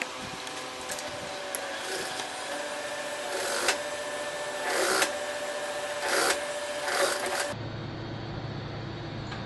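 Industrial sewing machine stitching denim in several short runs over the steady hum of its motor. The runs stop about three-quarters of the way through, leaving only a low steady hum.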